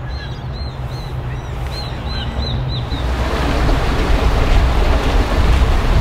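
Wind buffeting the microphone as a low, steady rumble, while a small bird chirps a quick run of short high notes. About halfway through the chirps stop and the wind noise swells and grows louder.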